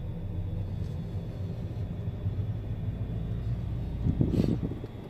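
Steady low drone of a Hyundai car's engine and tyres heard from inside the cabin while driving slowly. A short, louder bump about four seconds in.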